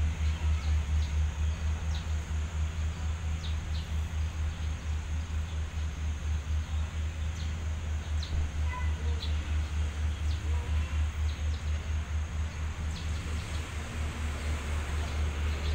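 Diesel railway engine running at idle with a steady, evenly pulsing low throb. Short bird chirps come now and then over it.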